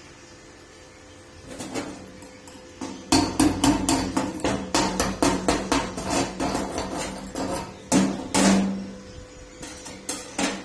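Hammer striking steel in a quick run of blows, several a second, starting about three seconds in, then a louder blow that rings on briefly and a few scattered knocks.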